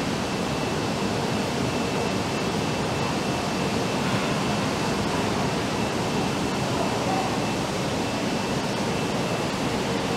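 Steady rushing noise of factory machinery and ventilation around a car test stand, even and unchanging, with a faint high steady whine running through it.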